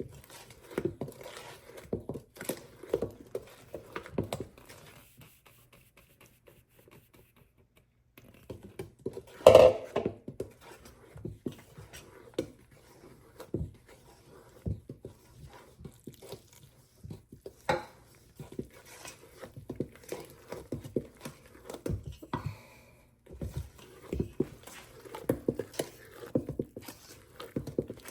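Banana bread batter being folded by hand with a spatula in a mixing bowl: irregular soft scrapes and knocks, with a short quiet stretch and then one louder knock about nine seconds in.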